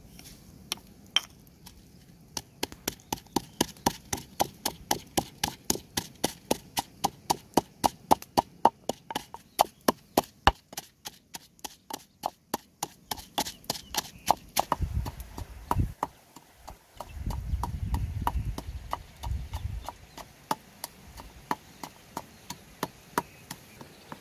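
Wooden pestle pounding chillies and garlic in a wooden mortar: a steady run of sharp knocks, about three to four a second, for roughly half the time. After that the knocks come slower and scattered, with a few low rumbling thumps in between.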